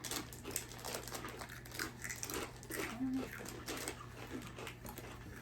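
Crunchy tomato-and-cheese spice crackers being chewed, a run of short crackly clicks, with a brief murmured voice about three seconds in.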